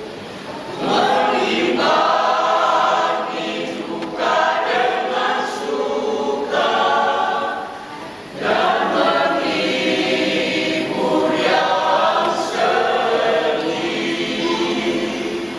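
Church choir of elderly singers singing in phrases, with short breaks about four and eight seconds in.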